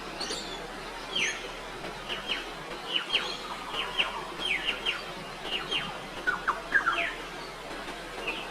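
A bird calling: short, clear notes that slide quickly downward in pitch, mostly in pairs, repeated every second or so, with a few lower notes near the end.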